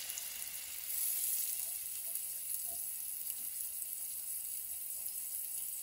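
Bacon-wrapped filet mignons searing in a very hot oiled pan: a steady, high sizzle that gets a little louder about a second in.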